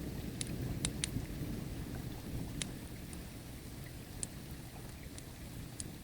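A low rumble of thunder dying away under a crackling wood fire, with a handful of sharp pops scattered through.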